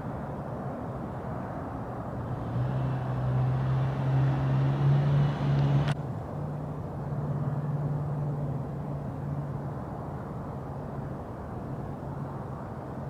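A car passing by, its engine hum growing louder over a few seconds and then fading away, over a steady low street rumble. A single sharp click about six seconds in.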